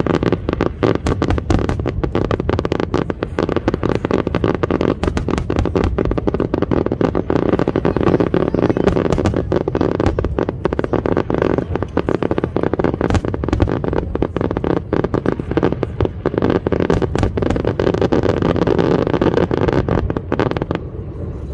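Fireworks going off in rapid succession: a dense run of bangs and crackles from bursting shells that stops near the end.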